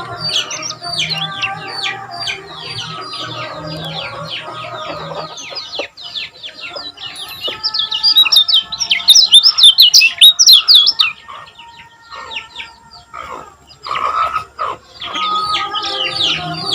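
A kecial kuning (lemon-bellied white-eye) singing a fast run of short, high, falling chirps, loudest in a dense burst about halfway through. The song drops off briefly and then picks up again near the end.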